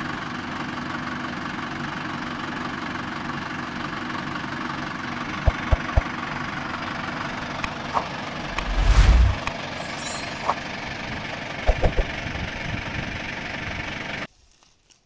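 Steady mechanical running noise, engine-like, with a few sharp knocks and one heavier low thump about nine seconds in; it stops abruptly near the end.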